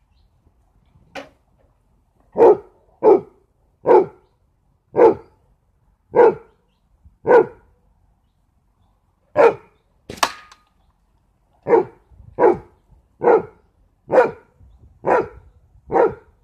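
A dog barking repeatedly, about fourteen short barks at an uneven pace with a pause partway through. About ten seconds in there is one short, sharper click.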